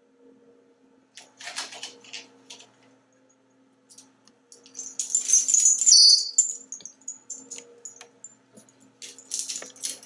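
African grey parrot making raspy, hissing sounds, with a loud high whistle about five seconds in that drops in pitch near its end.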